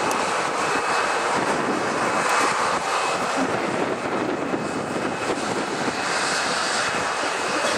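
Boeing 737-800's CFM56-7B jet engines running at low thrust as the airliner taxis: a steady rush with a faint, steady high whine.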